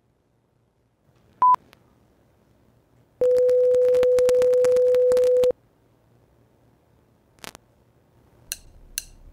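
Electronic beep tones: a short high beep about a second and a half in, then a steady lower tone held for about two seconds with crackling clicks over it, the tone of a mock VHS tape warning screen. A few faint clicks follow near the end.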